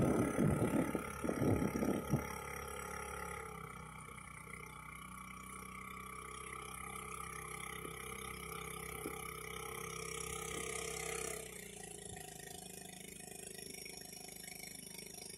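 A small engine running steadily with a low hum, which drops and changes pitch about eleven seconds in. A few fading thumps come at the very start.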